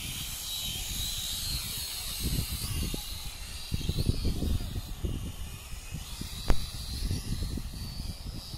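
Syma X5SC toy quadcopter's small motors and propellers whining, the high pitch wavering up and down with the throttle as it flies. Wind rumbles on the microphone, and there is one sharp click about six and a half seconds in.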